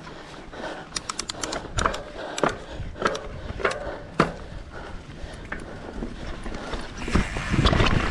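Mountain bike rolling down a dirt trail: tyres running over the dirt with a steady low rumble and scattered sharp clicks and rattles from the bike. About seven seconds in, a louder rush of tyre and wind noise comes in as the bike speeds up.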